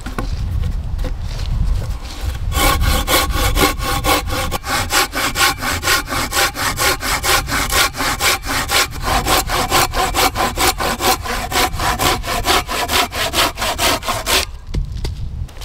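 Hand saw cutting through a log in quick, even back-and-forth strokes, about three a second. The sawing starts a couple of seconds in and stops shortly before the end.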